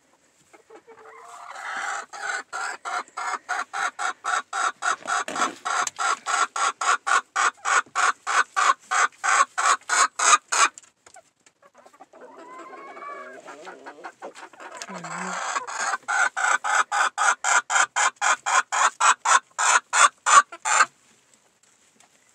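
A hen clucking in a fast, steady rhythm of about four clucks a second that grows louder over roughly ten seconds, breaks off, then starts again and builds to its loudest just before it stops.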